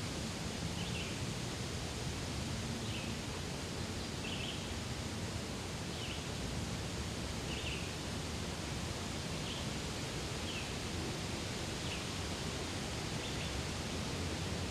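Daytime forest ambience: a steady rustling hiss of wind through the trees, with a small bird giving short high chirps about once a second.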